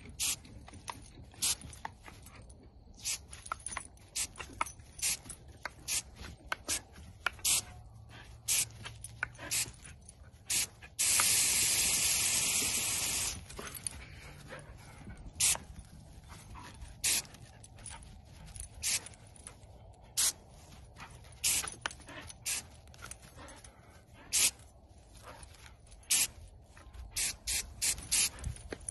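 A jet of water spraying over grass, with many short, sharp ticks scattered through it. Just before halfway there is a loud hiss of spray lasting about two seconds.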